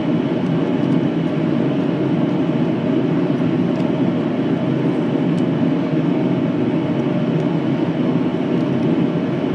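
Forge running with a steady rushing noise and a low hum underneath, while a chisel is tapped lightly on steel a few times to mark bend lines, the taps faint under the forge.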